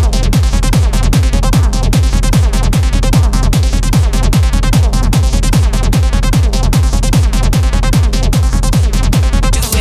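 Hard techno track with a fast, steady four-on-the-floor kick drum, each kick dropping in pitch, under a dense layer of synth noise.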